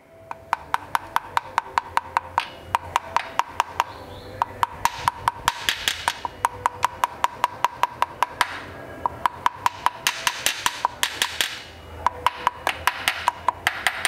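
Rapid light hammer taps on a metal drift, working around a guide tool to drive a rear crankshaft oil seal into place in the engine block. The strikes come about four a second in runs with short pauses, each with a brief metallic ring.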